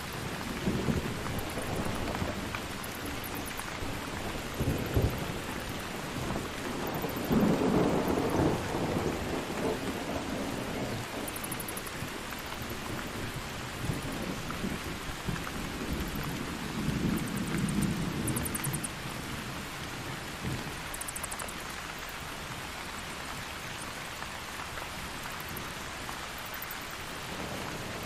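Steady heavy rain with several rolls of thunder rumbling through it, the loudest and longest about seven to ten seconds in and another weaker roll near eighteen seconds.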